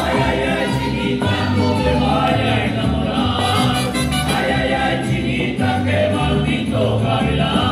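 Mexican folk dance music with voices singing together over a bass line.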